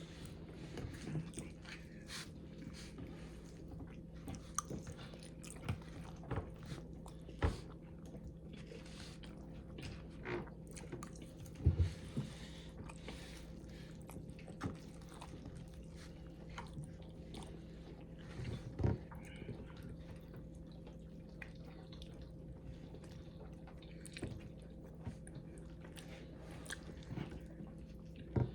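A person chewing and eating ramen close to the microphone: scattered soft mouth clicks and smacks, a few louder ones, over a steady low hum.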